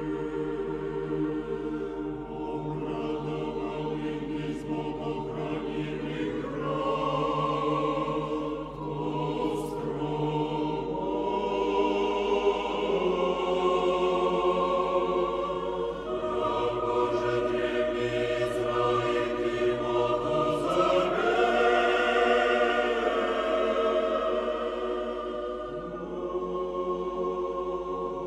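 Choir singing slow, sustained chords as background music, swelling louder in the middle and easing off near the end.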